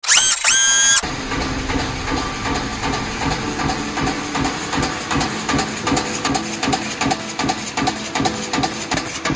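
A short, loud rising electronic sound effect in the first second, then an aerosol dome-lid production line running: a punch press stamping in a quick, steady rhythm over a constant machine hum.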